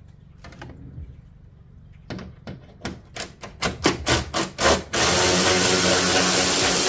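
A run of sharp clicks that come faster over about three seconds. Then a cordless power tool's motor starts whirring steadily about five seconds in; it is the loudest sound.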